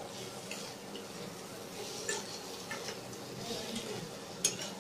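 Spatula stirring bitter gourd and onion slices in a steel pan: scattered light clicks and scrapes against the metal over a faint frying hiss, with one sharper tap near the end.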